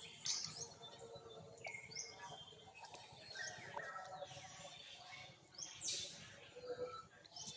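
Birds calling: high whistles that slide downward, repeated every second or two, over faint outdoor background noise.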